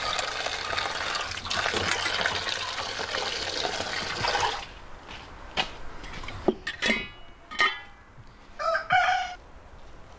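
A rush of running water for about four and a half seconds, then farmyard chickens: a rooster crows about seven seconds in and a hen gives short calls near the end, with a few sharp knocks between.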